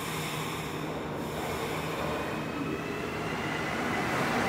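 Rubber-tyred Azur MPM-10 metro train pulling away from the platform, with a traction-motor whine that rises in pitch from about two seconds in as it accelerates. It grows louder toward the end.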